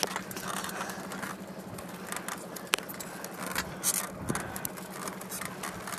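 Bicycle being ridden on a paved road: a run of small rattles and clicks from the bike and the handheld phone, with one sharper click near the middle, over a steady low hum.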